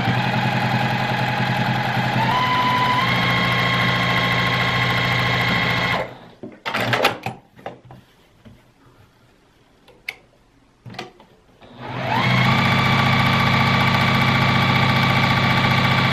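Electric home sewing machine running as it top-stitches a narrow folded fabric strap, its hum stepping up in pitch about two seconds in as it speeds up. It stops about six seconds in, a few clicks and handling noises follow, and it starts again about twelve seconds in and runs on.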